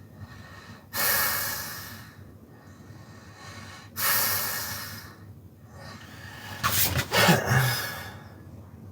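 A man snoring in his sleep: a loud breath about a second in, another about three seconds later, then a longer, rough snort with a low buzz near the end.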